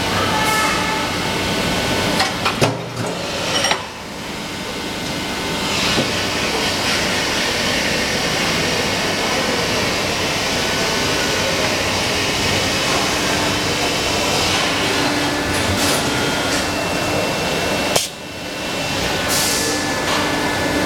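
Injection molding machine running with a steady mechanical drone and a few faint steady tones. Sharp metallic knocks come about two to four seconds in, and again about three seconds before the end, as the mold moves in the machine.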